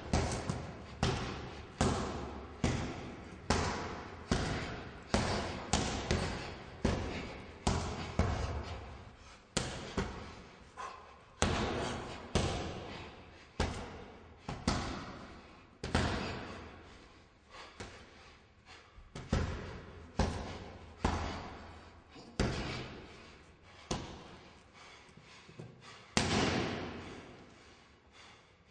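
Punches landing on a hanging heavy punching bag: a long run of dull thuds, each trailing off. They come about one and a half a second at first and space out to about one a second later, with a last hard blow near the end.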